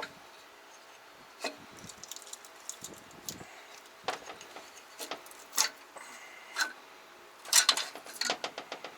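Scattered metallic clinks and knocks of tools and engine parts while the cylinders are being taken off a Jawa 638 two-stroke twin engine; a quick run of clinks near the end is the loudest.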